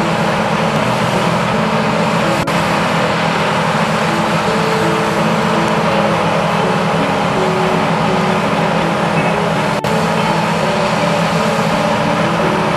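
Combine harvester running steadily while unloading grain through its auger into a trailer, with grain pouring in. The sound breaks briefly at two edits, about two and a half seconds in and near ten seconds.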